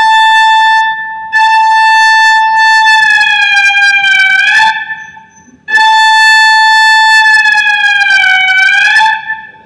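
Alto saxophone holding one high note three times in a row: a short note, then two longer ones. Each of the longer notes sags slowly in pitch and comes back up just before it stops.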